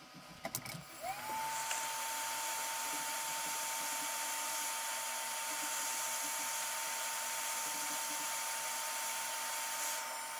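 Hot-air rework station blowing as it desolders a small surface-mount MOSFET from a laptop motherboard: a few light clicks, then about a second in its fan spins up with a short rising whine and settles into a steady hiss of air and a steady whine.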